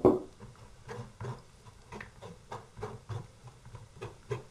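Wooden spoon pressing and rubbing cottage cheese through a metal mesh sieve, making irregular soft scrapes and taps, with a sharper knock right at the start.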